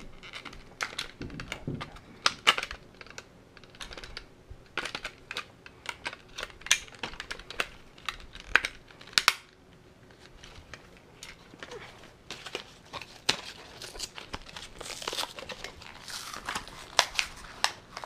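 Hands fitting C batteries into a toy blaster's plastic battery tray and handling the battery packaging: irregular clicks, taps and plastic crinkling.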